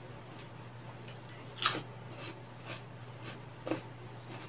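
A person chewing food close to the microphone: a run of short crisp clicks and crunches, the loudest about a second and a half in, over a steady low hum.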